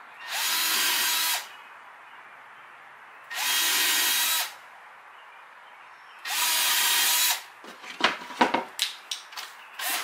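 Cordless drill boring into a wooden plate in three short runs of about a second each, evenly spaced, each with a steady motor whine. A quick run of knocks and clatter follows over the last two seconds.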